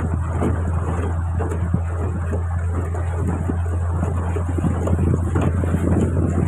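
Boat engine running steadily under way, a constant low drone, with wind buffeting the microphone.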